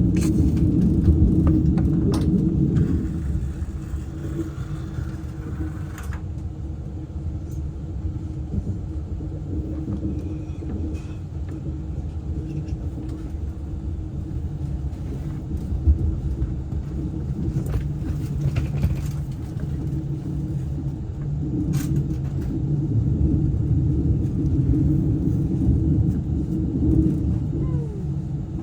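ICE high-speed train running, heard from inside the carriage: a steady low rumble with a humming tone. It is louder in the first few seconds and again near the end, with a few light clicks along the way.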